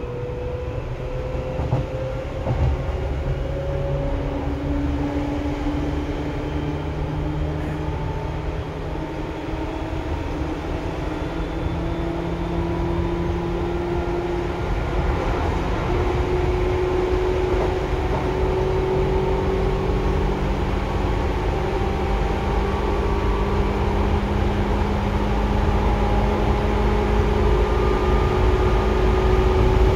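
Seibu 2000 series electric train heard from inside the car, accelerating. The whine of its DC traction motors and gears rises slowly in pitch as speed builds, over a steady rumble of wheels on rail, and grows gradually louder.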